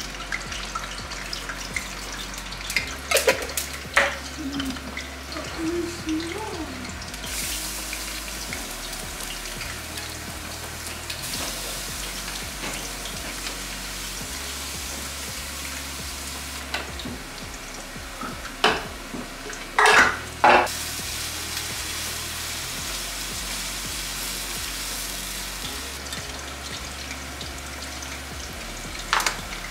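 Hot oil sizzling on a gas stove as food fries in steel pans, with a few sharp metal clinks of a spoon against the pans. Soft background music with a low bass line plays underneath.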